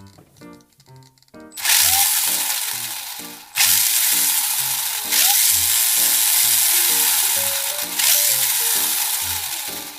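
Background music with a steady beat, overlaid from about a second and a half in by loud hissing noise in four long stretches, each starting suddenly and fading away.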